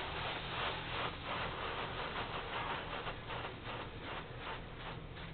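High-pressure water spray from a touchless automatic car wash hitting the car, heard from inside the cabin: a hiss that pulses about four to five times a second as the jets sweep across, fading toward the end, over a steady low hum.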